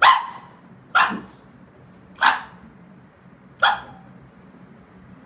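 Four short, sharp barks, one every second or so. They come at an uneven pace, the gaps widening slightly.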